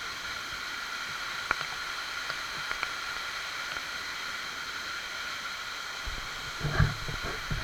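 Steady rush of water from a waterfall, with a few faint clicks, then low thumps near the end.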